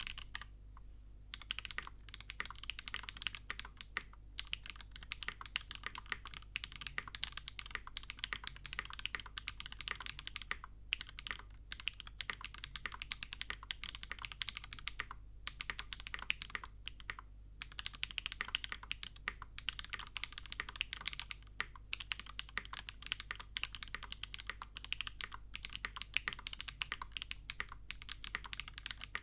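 Continuous typing on a custom mechanical keyboard, a Kbdfans KBD8X MKIII with an aluminium plate on a silicone Keysnap mount, fitted with Kezewa x SWK Typewriter switches and GMK keycaps: a fast, even clatter of keystrokes with a few short pauses.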